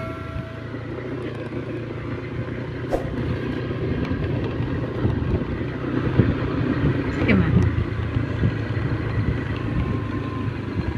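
Motorcycle engine running steadily as the bike is ridden over a rough dirt track.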